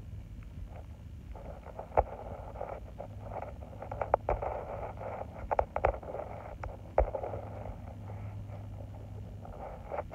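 A tabby cat pawing and biting at a charger cord on dry dirt: scratchy scuffling with a handful of sharp knocks, over a steady low hum.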